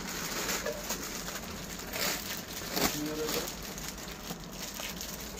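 Clear plastic garment packaging crinkling and rustling as folded kurtis are handled and pulled out, with a few louder crackles about two and three seconds in.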